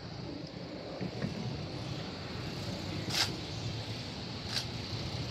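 Steady outdoor background noise, a low rumble and hiss, with two short sharp clicks about three and four and a half seconds in.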